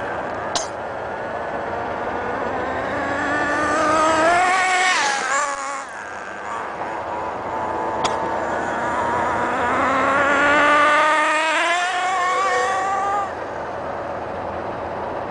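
Small two-stroke nitro engine of an HPI MT2 RC monster truck running at high revs. Its whine climbs in pitch and then drops sharply as the truck passes, twice, about 5 and 12 seconds in.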